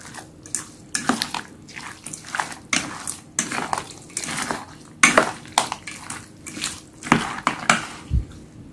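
Metal tongs tossing raw shrimp in a wet chili marinade in a stainless steel bowl: irregular wet squishing and clinks and scrapes of metal against the bowl, a few louder knocks among them.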